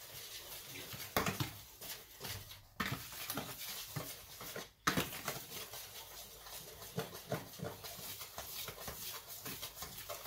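A utensil stirring dry flour mix in a plastic mixing bowl, with irregular scraping and light knocks against the bowl's sides.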